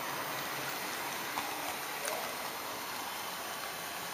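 HO-scale model train rolling along the track, with a steady hiss of wheels and motor and a couple of faint clicks around the middle.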